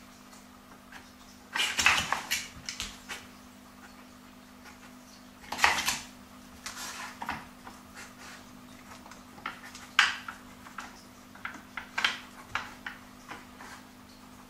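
A dog working a wooden puzzle toy, with its drawers and pieces knocking and clattering in irregular bursts; the loudest clatters come about 2, 6, 10 and 12 seconds in. A faint steady hum runs underneath.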